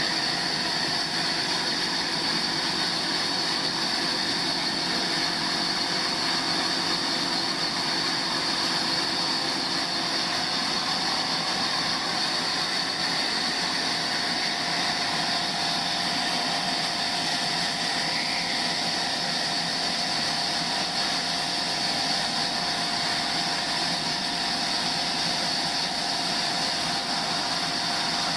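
Sawmill machinery running steadily: a continuous mechanical whine and hum with a few held tones and no change in level.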